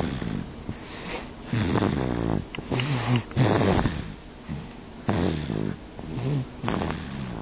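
Baby snoring: a run of short, rasping snores on its breaths, about one every second.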